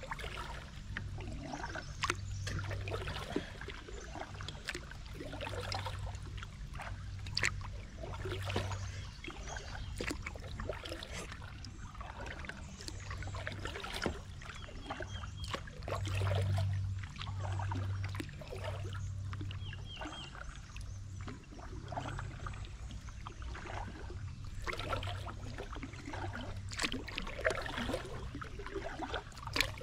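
Kayak being paddled through slow river water: paddle strokes splash and drip at roughly one a second, with water trickling off the blades and along the hull, and now and then a sharp knock.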